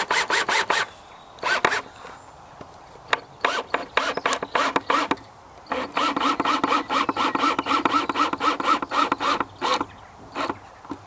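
Cordless drill driving a screw into wood slowly in short bursts. About halfway through comes a longer run of rapid, even clicking pulses.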